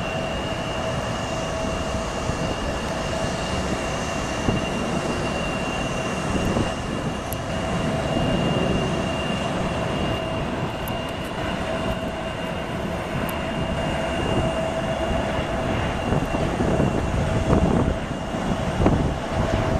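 Boeing 737 MAX 9 jet on final approach and touching down: a steady jet rumble with a steady whine through it, getting a little louder near the end as the plane reaches the runway.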